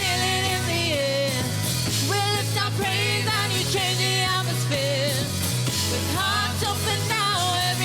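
Worship song playing: a singer's voice over a steady band accompaniment with sustained bass notes.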